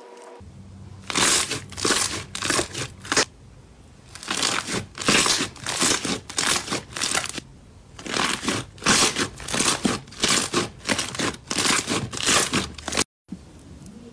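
Hands folding and squeezing a large glossy pink slime, giving quick crackling, squelching pops in three runs with short pauses between. The sound cuts out for a moment near the end.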